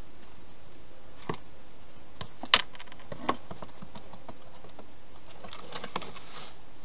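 A hedgehog feeding and shuffling about inside a clear plastic feeding box: scattered sharp clicks and taps, the loudest about two and a half seconds in and a small cluster near the end, over a steady hiss.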